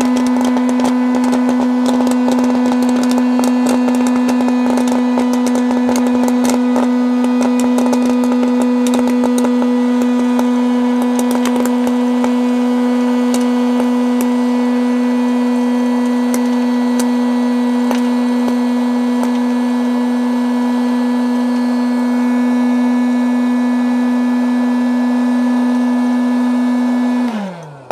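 Dash hot air popcorn popper running, its fan motor giving a loud, steady hum, with sharp pops and clicks from the popping corn that grow sparser as the batch nears its end. Near the end the popper is switched off and the hum falls in pitch as the fan winds down.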